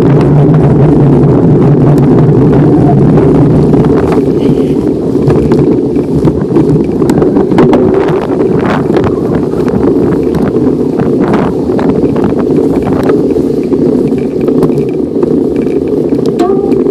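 Wind buffeting the microphone of a handlebar-mounted camera on a moving bicycle: a loud, steady low rumble. From about four seconds in, scattered clicks and knocks from the bike rolling over rough ground join it.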